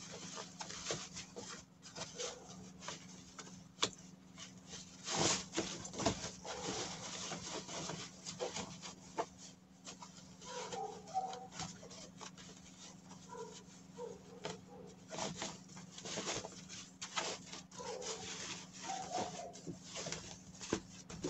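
Knit fabric rustling and rubbing as a sewn piece is handled and turned right side out, in irregular swishes, over a steady low hum.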